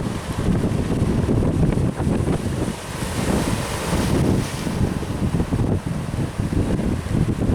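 Strong wind buffeting the microphone over the wash of sea surf, with a louder rush of water about halfway through.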